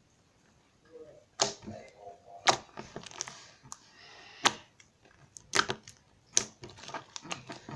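Slime being squeezed and poked by hand for ASMR: irregular sharp pops and clicks from trapped air, about half a dozen loud ones among softer crackles.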